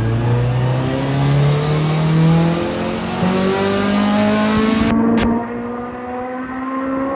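Turbocharged Honda B16A3 four-cylinder at full throttle on a chassis dyno, exhaling through a full 3-inch turbo-back exhaust with a Vibrant muffler, its revs climbing steadily through the pull, heard from inside the cabin. A high whine rises with it, and two sharp cracks come about five seconds in.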